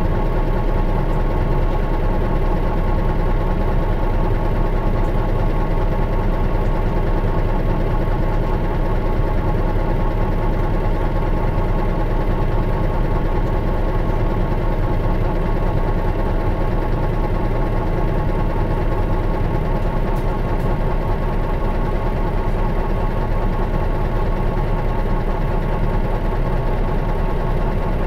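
Diesel engine of a 2002 Mitsubishi Fuso Aero Bus coach (KL-MS86MP), heard from inside the bus. It runs at a steady, unchanging pitch over a constant low rumble.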